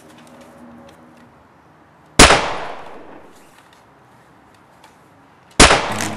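Two loud gunshot bangs about three and a half seconds apart, each echoing away over about a second. The bangs stand in for shots from the children's toy blaster.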